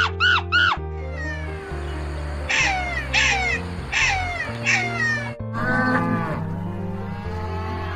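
A run of short animal cries over background music: a few quick arched calls at the start, then four falling cries about two-thirds of a second apart, and a rougher, buzzier call about three-quarters of the way through. The music holds sustained low notes underneath.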